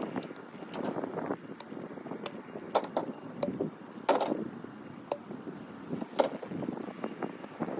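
Dry elm firewood rounds being tossed into a pickup truck bed: several sharp wooden knocks, spaced irregularly, the loudest about halfway through.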